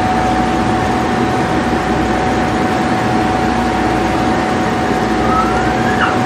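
Steady machine-like drone with a constant high whine over it. Near the end, a short rising squeak.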